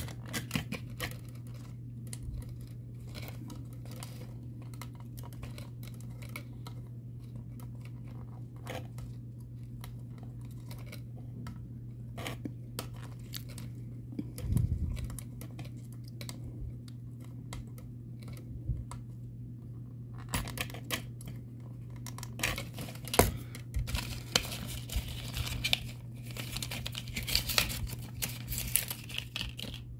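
Small plastic clicks and taps of landing-gear pieces being handled and pressed into a plastic model airliner, over a steady low hum. From about two-thirds of the way through, crinkling and rustling of plastic packaging, with sharper ticks.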